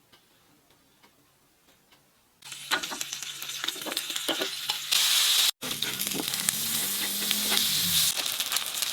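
Shrimp heads frying in butter in a pan: a loud sizzle with small clicks of stirring. It starts suddenly about two and a half seconds in, after near silence, and drops out for an instant a little past the middle.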